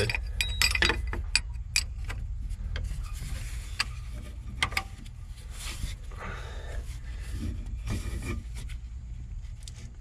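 Steel combination wrench clicking and scraping against a clamp bolt and the metal control linkage of the hydrostatic drive pump as it is fitted and given another small turn. A quick run of sharp clicks for the first couple of seconds, then softer scraping with a few scattered clicks. A steady low hum runs underneath.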